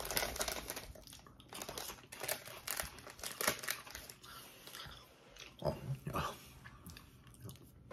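Crisp crunching of Lay's Classic potato chips being chewed, a run of short sharp crunches. The foil chip bag rustles as a hand reaches into it.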